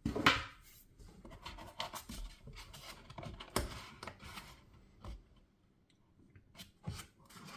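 Hand tools being handled and set back into a toolbox's foam tray insert: rubbing and scraping with scattered sharp clicks, the loudest just after the start and another about three and a half seconds in.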